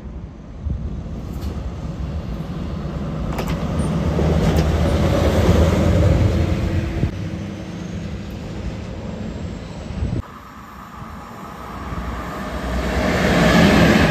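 A single locomotive running light along the rails: a rumble and low hum of its running gear that builds as it approaches, with a few sharp clicks from the wheels, loudest about six seconds in. The sound drops suddenly about ten seconds in, then builds again to a second peak near the end as the locomotive passes close.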